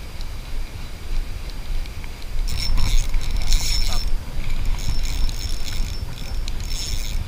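Shimano Aernos 1000FA spinning reel's drag buzzing in two high-pitched runs of a second or two each as a hooked fish takes line on the strike, over a steady low rumble of wind and water on the microphone.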